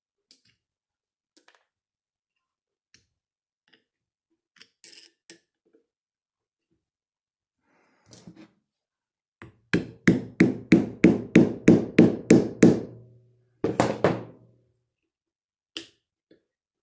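Hammer blows knocking a loose axe head down off its wooden handle: after a few faint taps comes a quick run of about a dozen hard strikes, around four a second, then a couple more and a last single knock.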